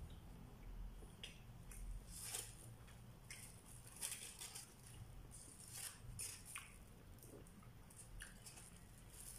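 Faint, irregular crinkling of a plastic bag and aluminium foil, with chewing, as flatbread is torn and eaten by hand.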